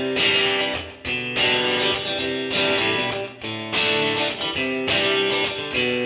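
Background music: a guitar tune played in short phrases.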